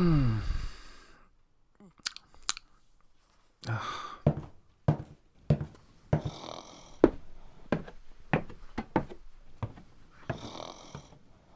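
Sound effects in an audio drama. A snore ends on a long tone falling in pitch, then comes a run of sharp clicks and knocks with two bursts of rustling.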